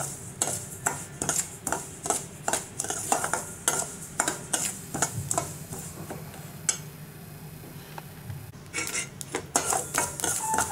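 Metal spoon stirring and scraping dry-roasting poppy seeds around a stainless steel pan, with frequent clicks and scrapes of spoon on steel. The stirring eases off for a couple of seconds about two-thirds of the way in, then picks up again near the end.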